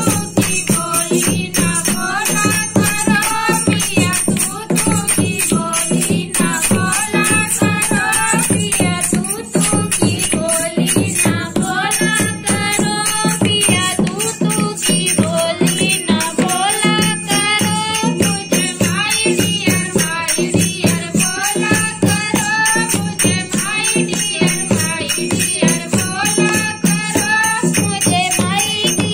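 Women singing a folk dance song in unison to a hand-played dholak drum, with jingling hand percussion keeping a steady beat.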